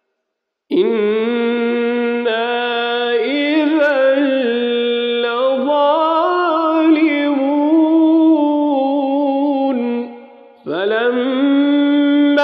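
Male Quran reciter chanting in drawn-out tajweed style: one long melodic phrase with wavering, ornamented notes, starting just under a second in. It breaks off about ten seconds in, and a new phrase begins near the end.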